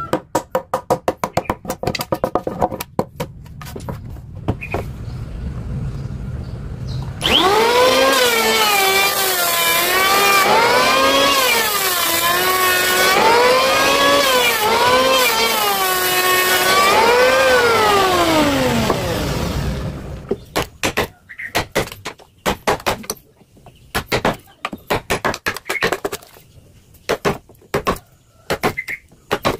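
A power tool's motor runs for about twelve seconds, its whine rising and falling in pitch again and again as the load changes. Before it come rapid tapping clicks, and after it scattered knocks on wood.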